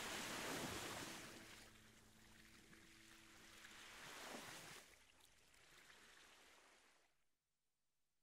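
Faint rushing noise without pitch, swelling twice and then dying away to near silence.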